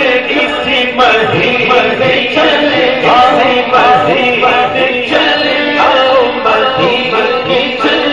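A man's voice singing an Urdu devotional naat through a microphone, drawn out in long, ornamented held notes, over a faint regular beat about once a second.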